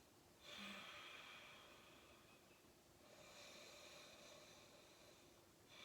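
Faint, slow breathing: two long, soft breaths of about two seconds each, taken while holding a yoga stretch.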